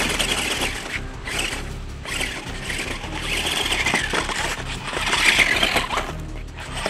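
Electric motor of a toy RC Batmobile truck whirring as it drives over loose gravel, its tyres crunching through the stones. The sound comes in surges as the car speeds up and slows.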